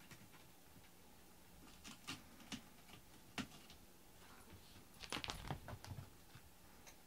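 Cats padding over foam floor mats and pawing at a cushion: faint, scattered taps and scrapes, busiest about five seconds in.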